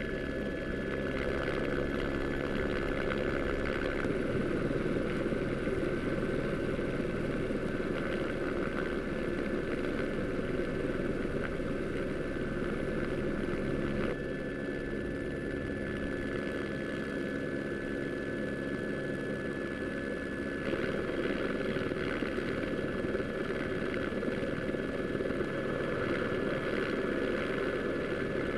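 Steady engine drone under a constant high whine, with the lower engine note shifting about halfway through and again later.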